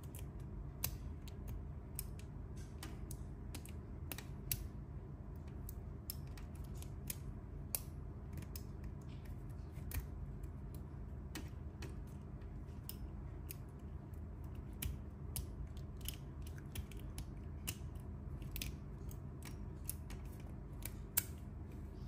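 Lock pick and tension wrench working in the keyway of an Abus 54TI/30 padlock: a run of small, irregular metallic clicks and ticks as the pins are worked, over a faint steady background hum.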